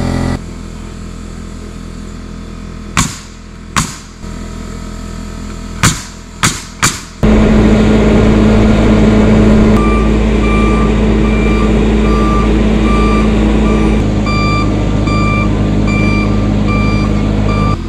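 A few sharp knocks over a running engine. Then, about seven seconds in, the diesel engine of a Bobcat compact track loader comes up loud and runs steadily. From about ten seconds in, its backup alarm beeps at an even pace while the machine reverses.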